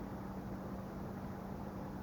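Steady low hum with a faint even hiss: quiet room tone with no distinct events.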